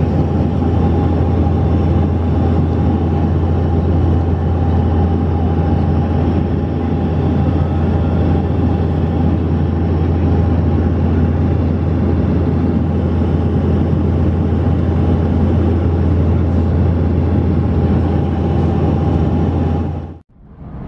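Steady cabin drone of an airplane in flight heard from beside a window: a deep constant hum with a steady higher whine and rushing noise over it. It cuts off suddenly just before the end.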